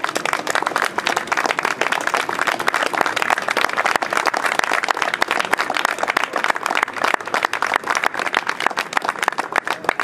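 Audience applauding, many hands clapping at once. It starts suddenly and thins out near the end.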